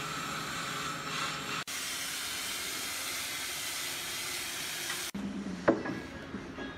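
Steady workshop hiss that changes abruptly twice. About three-quarters of the way through comes a single sharp wooden knock as a curved wooden moulding strip is handled against a carved wooden door panel.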